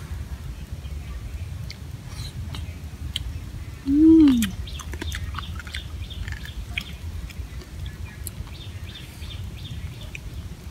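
Grilled crab shells being cracked and picked apart by hand and chewed, in small scattered clicks and cracks over a low steady rumble. About four seconds in, one loud short call rises and then falls in pitch.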